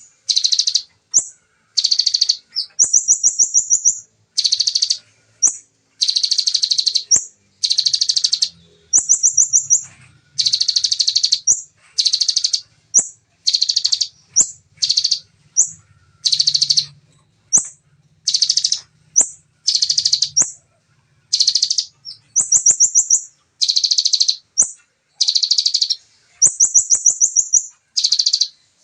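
Bar-winged prinia (ciblek) singing its fast, dense song: loud, high-pitched rapid trills in short phrases, one after another with brief pauses, some phrases a thinner, higher buzzy trill.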